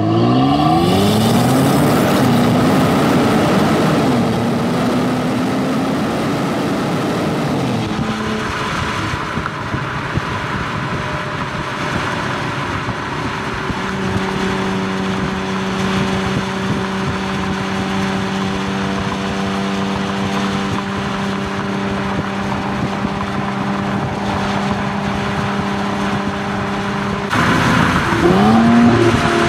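Stock exhaust of a 2022 Infiniti Q50 Red Sport's 3.0-litre twin-turbo V6, heard at the tailpipe while driving. It revs up through a gear change in the first few seconds, then settles to a steady drone at cruising speed over wind and road noise. It accelerates again near the end.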